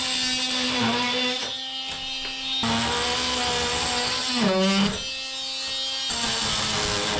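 Power drill motor running with a steady whine. It thins out briefly about a second and a half in, then dips in pitch about four and a half seconds in as it loads up, and settles slightly lower.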